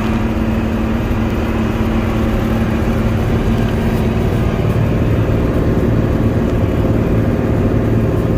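Combine harvester running steadily under load, a constant engine and machinery drone with a steady low hum, as it threshes the last small patch of canola.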